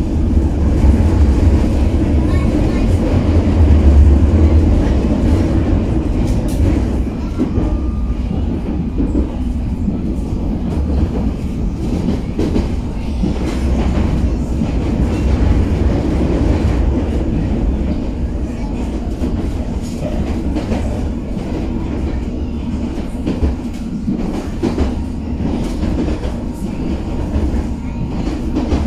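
London Underground District line S7 Stock train running between stations, heard from inside the carriage: a steady, heavy low rumble from the wheels and running gear, with scattered clicks of the wheels over rail joints. It is loudest a few seconds in, then settles.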